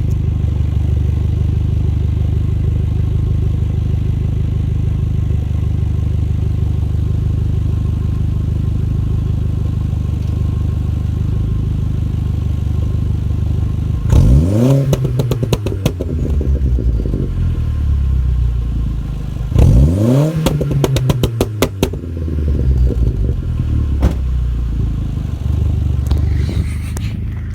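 Audi A3 1.8T's turbocharged four-cylinder running through a de-catted, straight-through exhaust with a Powerflow back box: it idles steadily, then is revved hard twice about halfway through. Each time the revs fall back, a rapid string of pops and crackles comes from the exhaust on the overrun, the effect of a pops-and-crackles remap.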